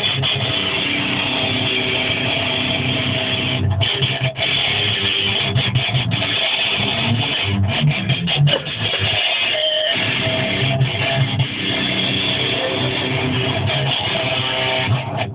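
Jackson electric guitar played through an amplifier, a continuous run of strummed chords and riffs; the low notes drop out briefly about nine seconds in.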